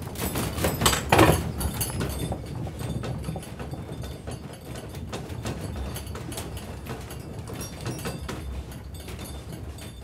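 A building and loose objects rattling and creaking in earthquake shaking: many irregular knocks and clicks over a low rumble, loudest about a second in, then easing off.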